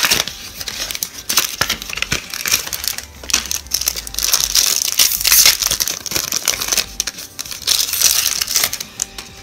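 Foil booster pack wrapper crinkling as it is handled and torn open, with the paper blister-card backing rustling near the start. It is a busy, crackling rustle full of small clicks.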